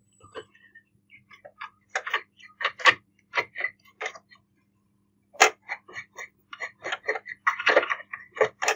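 Irregular small clicks and short scratchy strokes of hands cleaning lint and dust from the feed-dog area of a Usha Janome Dream Stitch sewing machine. The clicks come closer together near the end.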